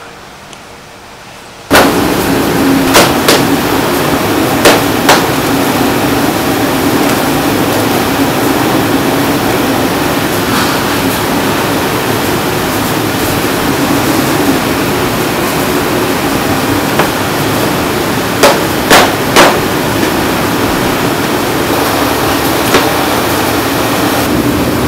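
Commercial kitchen noise: a loud steady rush with a low hum that starts abruptly about two seconds in, broken by sharp metallic knocks, two pairs early on and a quick run of three near the end.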